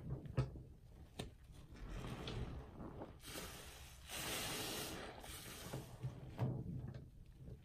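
A soapy sponge being dipped and squeezed by hand in a sink full of foamy water: irregular wet squelching and sloshing, with a longer hissing gush of water and foam from a little past three seconds in.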